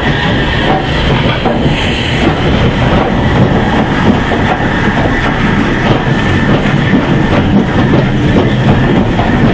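LMS Black Five steam locomotive 44806 working away with its train, the coaches rolling close past with wheels clicking over the rail joints. The sound is loud and continuous.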